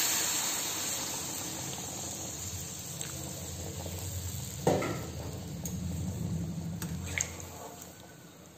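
Hot water poured into a kadai of potato and pea curry, the pour splashing and rushing, then tapering off over the first few seconds. One sudden knock near the middle.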